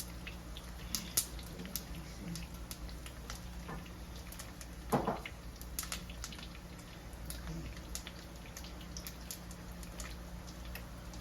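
T-bone steak frying in garlic butter in a pan on the stove, spitting and crackling with scattered sharp pops over a steady low hum, one louder pop about five seconds in.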